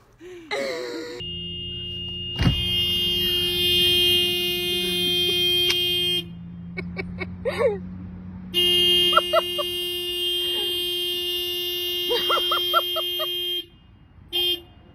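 Car horn blaring in two long steady blasts of about five seconds each, with a short toot near the end, set off by a dog sitting in the driver's seat. Between and over the blasts come a few short vocal sounds.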